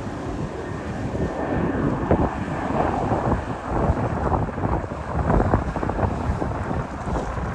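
Strong gusty wind buffeting the microphone, a dense, rumbling noise that rises and falls with the gusts.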